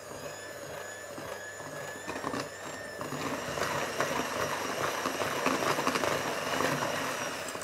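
Electric hand mixer running, its beaters whisking stiff buttercream frosting of butter and icing sugar in a bowl. The motor whine rises as the speed is turned up, gets louder with a busier rattle of beaters in the mix about three seconds in, and winds down near the end.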